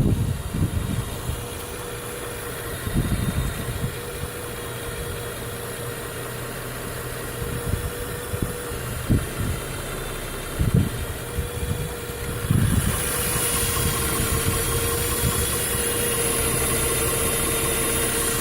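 Vehicle engine idling with a steady whine and a few irregular low thumps. About two-thirds of the way through, a louder hiss joins in and holds steady.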